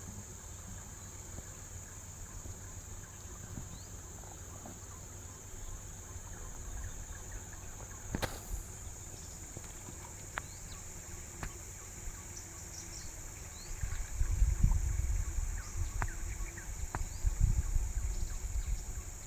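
Forest insects keeping up a steady, high-pitched drone. A sharp click comes about eight seconds in, with a few lighter ticks after it. Louder, irregular low rumbling starts about fourteen seconds in.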